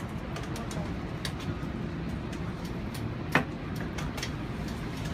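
Steady low rumble of an idling city bus, with scattered light clicks and one sharp knock about three and a half seconds in as a manual wheelchair rolls aboard over the ramp.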